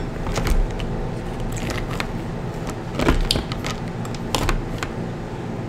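Shells of cooked crab legs cracking and snapping as they are pulled and picked apart by hand, in short sharp cracks, loudest about three seconds and about four and a half seconds in.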